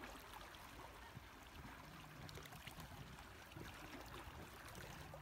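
Near silence: faint outdoor ambience of a low wind rumble with soft trickling, lapping water.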